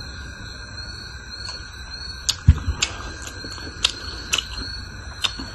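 Close-miked eating and food-handling sounds: a string of sharp clicks and smacks from the mouth and fingers working the food, with one dull thump a little after two seconds. A steady high whine runs underneath.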